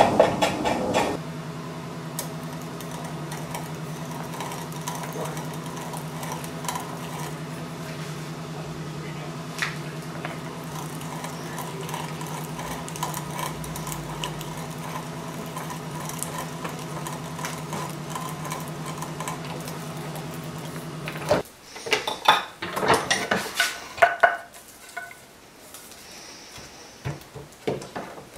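A steady hum with several even tones runs for about twenty seconds and cuts off suddenly. Then comes a run of sharp metallic clinks and knocks.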